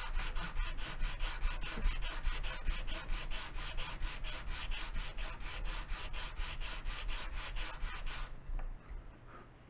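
Sanding block rubbed rapidly back and forth along a thin wooden glider fuselage stick, about five strokes a second, stopping about eight seconds in.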